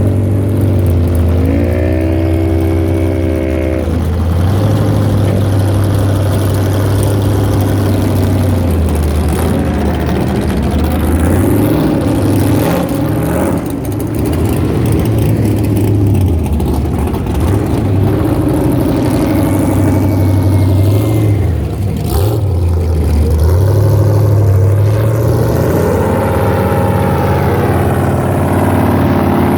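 Off-road vehicle's engine running under load, revving up and down repeatedly, with a rising rev about a second in.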